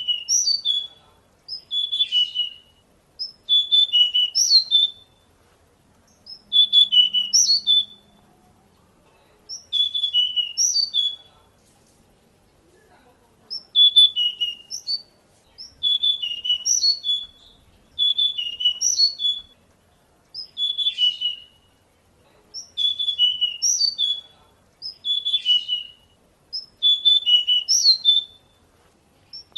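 Pied bushchat (decu) singing: a short, quick whistled phrase repeated over and over, about one phrase every two seconds with brief pauses between.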